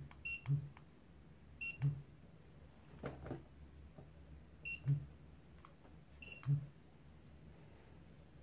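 Code CR2600 handheld barcode scanner giving its good-read beep four times at uneven intervals, each a short two-pitch chirp followed by a brief low thump; each beep marks a successful barcode read. A soft knock comes about three seconds in.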